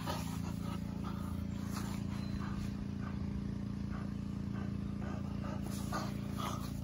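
A motor running steadily at one even pitch, a low drone like an engine. Over it come faint soft scuffs and breaths from a dog tugging at a rubber ring toy.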